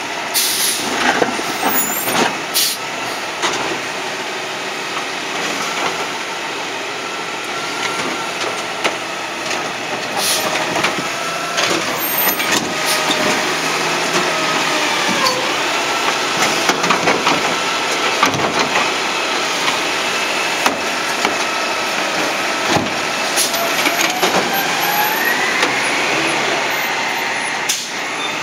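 Refuse truck with a New Way Sidewinder automated side-loader arm at work: the engine and hydraulics run with a pitch that bends up and down as the arm grabs, lifts and tips a wheeled garbage cart, with several sharp knocks from the cart and arm. Near the end the pitch rises as the truck pulls away.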